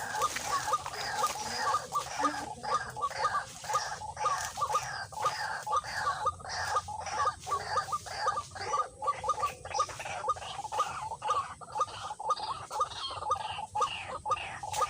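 White-breasted waterhen calling, a long run of short harsh 'kru-ak' notes repeated about twice a second.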